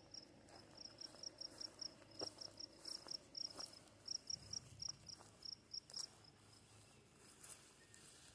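Faint insect chirping: a quick, even run of short high-pitched pulses, about four or five a second, that stops about six seconds in.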